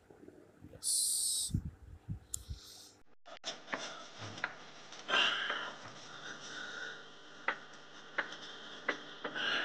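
A brief loud hiss about a second in, with a few low thumps. After a cut, a man breathes heavily as he does push-ups on a floor mat, with scattered light clicks and taps.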